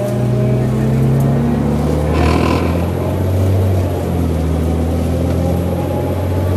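Cummins ISL straight-six diesel engine of a 2002 New Flyer D40i transit bus with an Allison B400R automatic, running under way. Its pitch steps down about two seconds in and climbs again about four seconds in, with a brief hiss about two seconds in and a faint high whine.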